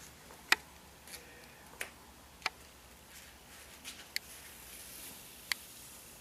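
Faint handling sounds as an adhesive skin patch is peeled and pressed on: about half a dozen small, sharp clicks spaced irregularly, over quiet room tone.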